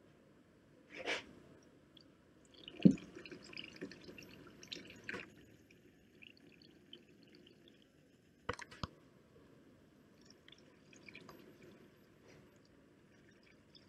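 Alcohol poured from a plastic bottle into a bucket, trickling and dripping in small splashes. A sharp knock about three seconds in is the loudest moment, and two quick clicks come just past the middle.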